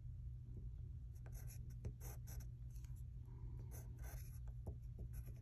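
A pencil writing on a paper worksheet: several short scratching strokes in small groups, over a steady low hum.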